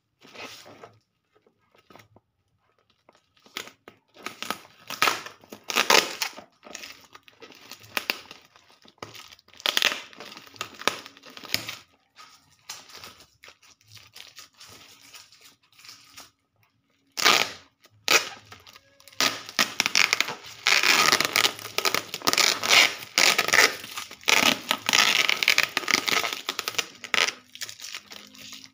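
Clear packing tape being pulled off and black bubble-wrap plastic crinkling and tearing as a parcel is unwrapped by hand. It comes in irregular bursts, with one sharp rip about two-thirds of the way in and a long stretch of steady tearing and crinkling near the end.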